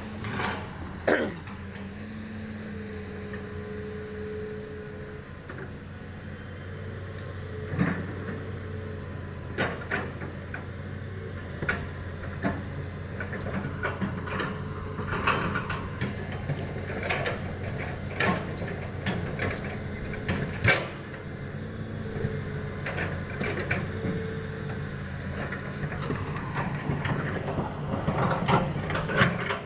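Excavator engine running steadily while it loads stone into a truck, with repeated sharp knocks and clatters of rock against the bucket and truck bed.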